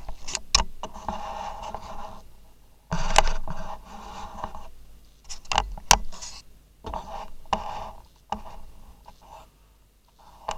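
Irregular scraping and rubbing, with several sharp clicks in between.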